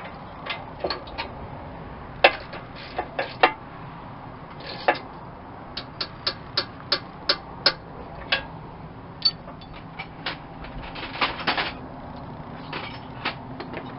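Ratchet wrench clicking in short strokes as the winch-mount bolts are tightened, with sharp metallic clicks, some in a run of about three a second.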